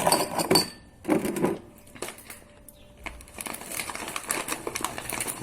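Two louder rustling bursts in the first second and a half, then from about three seconds in a dense, continuous crackling made of many fine clicks, played up as a 'satisfying' noise.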